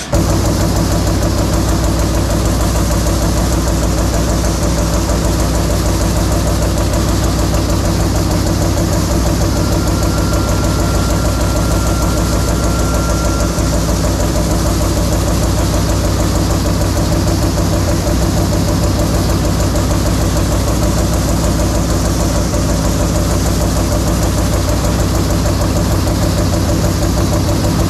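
CNC punch press punching holes in a stainless steel sheet in a rapid, steady stream of strokes, over the constant hum of the machine's drive. It starts abruptly and keeps an even, fast rhythm.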